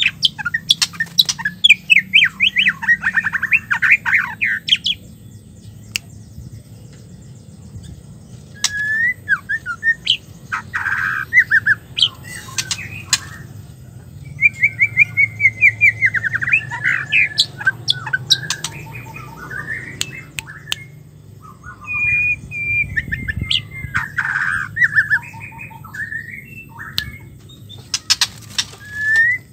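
Female white-rumped shama singing in several bursts of rapid chattering and whistled notes, with short pauses between the phrases and sharp clicks among them.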